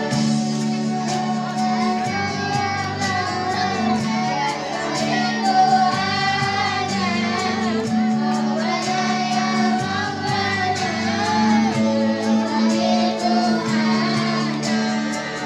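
A group of girls singing a melody together into microphones, their voices wavering and sliding between notes, over a steady accompaniment of held low notes.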